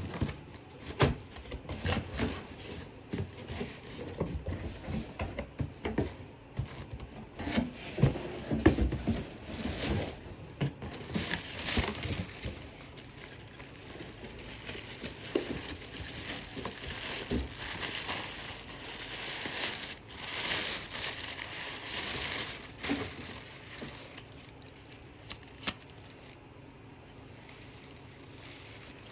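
Packaging being handled and unwrapped, crinkling and rustling, with scattered knocks and taps through the first half; the rustling settles down and goes quieter near the end.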